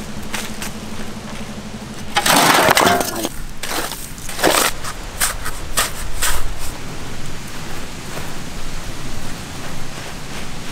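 Dry earth being scraped and scooped out of a shallow pit by hand with a flat stiff scoop, in rough crunching strokes. The longest and loudest scrape comes about two seconds in, followed by a run of shorter, sharper scrapes.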